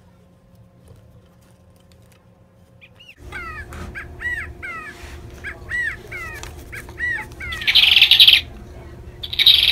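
Recorded bird calls played from the sound box of a squeezed plush toy bird. They start about three seconds in as a run of about ten quick chirps, followed by two loud, harsh squawks near the end.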